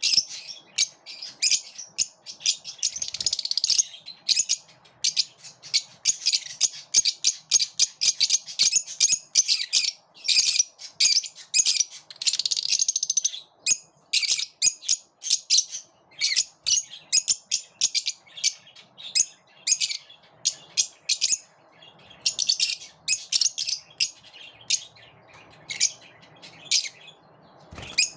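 Lovebirds chirping in rapid, high-pitched calls that come thick and fast, then thin out to scattered chirps over the last few seconds.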